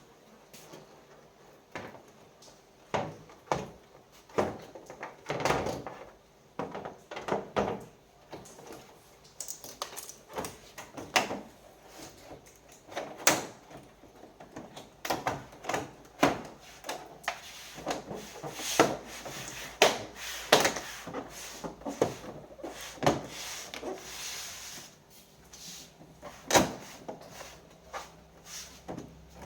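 Irregular knocks, clicks and clatter of parts and tools being handled and set down on a hard surface, with no steady rhythm.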